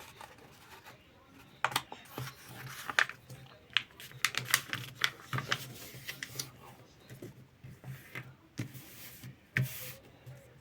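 A sheet of paper being folded and creased by hand: irregular rustles, crackles and taps.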